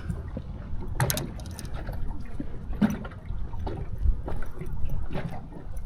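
Low rumbling noise of wind and water around a small boat, broken by a few short knocks and clatters about 1, 3 and 5 seconds in.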